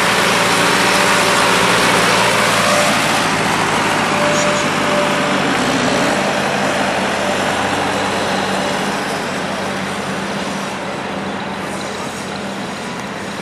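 Farm tractor engine running as the tractor drives past, loudest in the first few seconds and slowly fading, with other tractor engines idling in the background.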